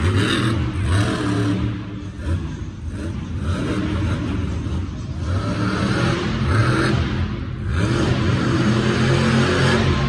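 Monster truck's supercharged V8 revving again and again, the pitch climbing and dropping with each burst of throttle.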